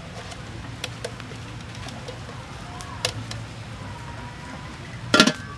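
A whole raw chicken handled and set down in an aluminium cooking pot: a few faint taps and clicks over a steady low hum. One loud, short, sharp sound comes near the end.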